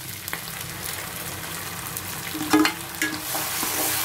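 Chopped onions sizzling in hot oil in a nonstick pan as a spatula stirs them, with a brief loud knock about two and a half seconds in. The sizzling grows louder near the end as the wet blended tomato and cashew paste goes into the hot oil.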